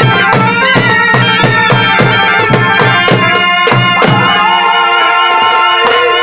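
Chhau dance music: a shehnai-type reed pipe plays a loud, wavering, sustained melody over fast dhol drumming at about four strokes a second. The drum strokes thin out after about four seconds, while the pipe holds and bends a long note.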